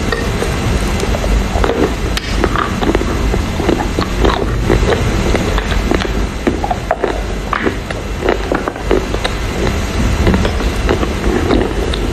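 Close-miked biting and chewing of a piece of wet Chinese loess clay: a dense, irregular run of crunches and crackles in the mouth, over a steady low hum.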